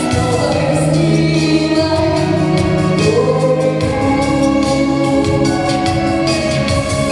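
Music with a choir singing sustained notes over a steady bass accompaniment.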